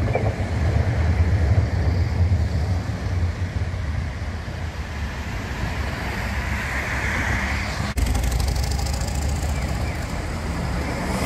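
Street traffic: a steady low rumble of road vehicles, with one vehicle passing close about six to seven seconds in. The sound cuts abruptly about eight seconds in, and the traffic continues.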